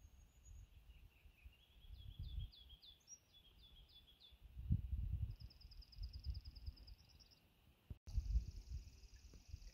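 Songbirds singing: a run of short, quickly falling high notes, then a fast high trill, and another trill about 8 seconds in. Low, uneven rumbling sits underneath.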